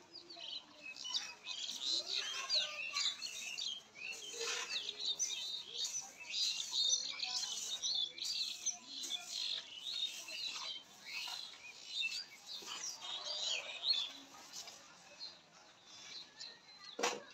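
Birds chirping and twittering, many short quick calls overlapping without pause. A single sharp knock sounds just before the end.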